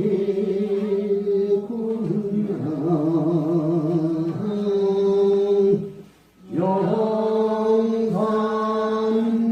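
Buddhist chanting: a voice holds long, steady notes that step between pitches, with a wavering stretch about three seconds in and a short break for breath at about six seconds.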